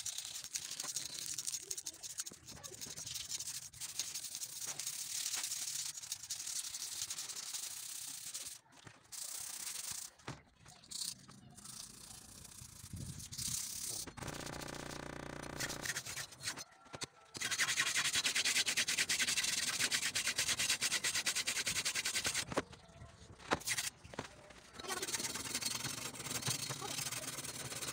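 Steel billhook blade being scrubbed and sanded by hand, a run of quick scratchy rubbing strokes that is loudest in a steady stretch past the middle. The blade is heavily rusted.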